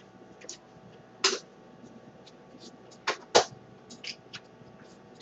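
A few short plastic clicks and knocks from a Nerf toy blaster being handled, with a louder pair close together about three seconds in.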